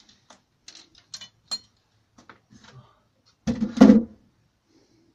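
Wooden hive frame being scraped clean of softened wax residue with a metal scraper over a bin: a run of light scraping clicks and taps, then a louder burst of knocking and scraping about three and a half seconds in.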